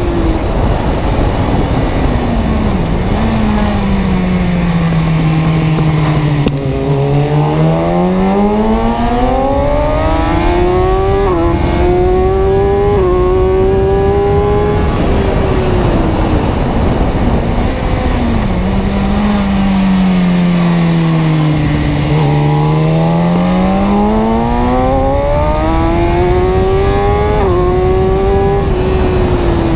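Vehicle engine accelerating and slowing, twice over: its pitch climbs with brief dips like gear changes, then falls away steadily before rising again.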